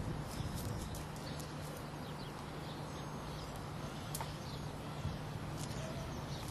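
Faint small birds chirping over a low steady hum, with scattered light ticks.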